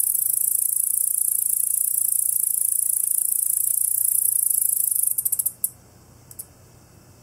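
A male yabukiri katydid (Tettigonia orientalis) stridulating: a continuous, very high-pitched buzzing trill. About five seconds in it breaks into a few short bursts and stops, and one brief chirp follows about a second later.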